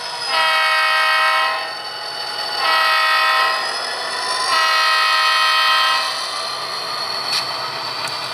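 Sound decoder in an HO-scale Santa Fe diesel locomotive model sounding its multi-chime air horn: a long, a short and a long blast, finishing the long-long-short-long grade-crossing signal as the train nears a road crossing. After the last blast, the model's diesel engine sound runs on steadily, with a small click about seven seconds in.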